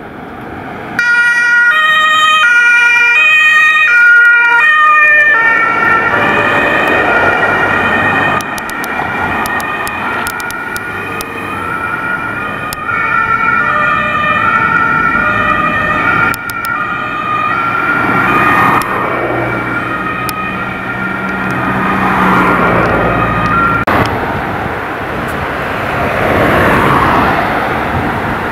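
German emergency vehicles' two-tone sirens (Martinshorn) sounding on call, the tones alternating in steps; a loud siren starts about a second in, then several sirens overlap at different pitches. Engine and traffic noise run underneath.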